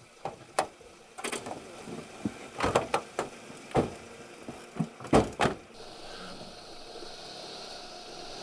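A series of sharp knocks and thuds around a car, with car doors being handled and shut, the three loudest knocks spread over the first five seconds. From about six seconds in a steady hiss takes over.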